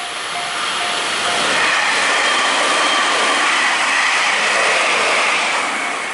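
A train passing a level crossing: its running noise swells about a second in, with steady high-pitched tones over the rush, and eases near the end. At the start, the crossing's warning bell rings about twice a second before the train drowns it out.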